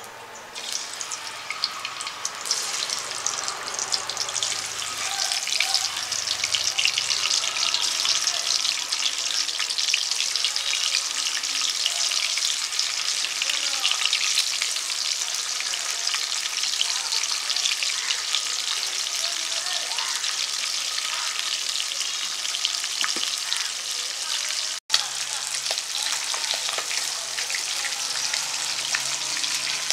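Hilsa fish and eggplant pieces sizzling and crackling as they deep-fry in hot oil in an iron karahi. The sizzle swells about two seconds in, as the pieces go into the oil, and then stays steady.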